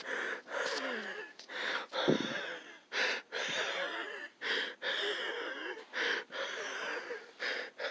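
A man's rapid, labored wheezing breaths during an asthma attack: quick noisy inhalations and exhalations with squeaky whistling tones, one after another about every half second, with one louder, heavier burst about two seconds in.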